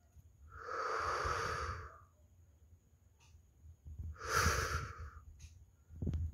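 A person breathing out heavily twice, each a long breath of about a second and a half, the second about three seconds after the first.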